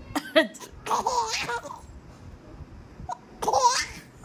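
A woman gives a couple of short, sharp coughs right at the start, and a baby laughs in reply: one burst of laughter about a second in and another near the end.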